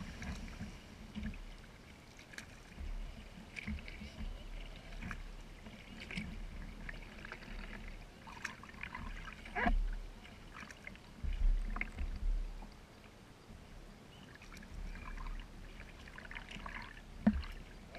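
Kayak paddle strokes in calm water: blades dipping and dripping in an irregular run of soft splashes, with a few dull low thumps, the loudest about ten, twelve and seventeen seconds in.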